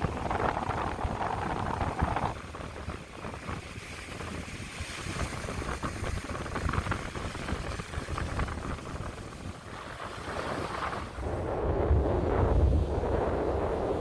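Wind buffeting the microphone over a steady rush of open-air noise, growing louder with a stronger low rumble about eleven seconds in.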